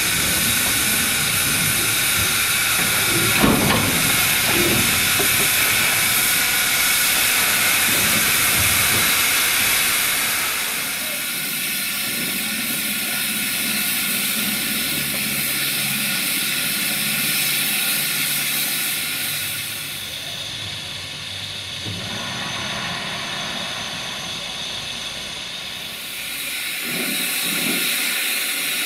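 Steam locomotive hissing steadily as steam escapes, with one short clank about three and a half seconds in. The hiss eases about ten seconds in and again around twenty seconds, then grows louder near the end.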